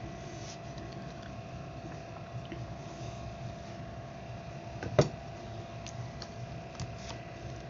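Low steady background hiss and hum with a faint steady tone, and a single sharp click about five seconds in as the amplifier driver circuit board is handled on the workbench.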